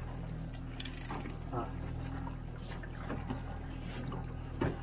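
Yamaha 50 hp outboard motor running steadily at low trolling speed, with water washing behind the boat.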